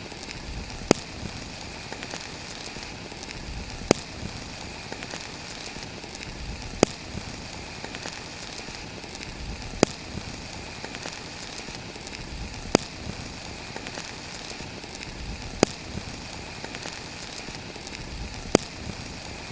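Crackling fire: a steady hiss with a sharp pop about every three seconds, the pops evenly spaced.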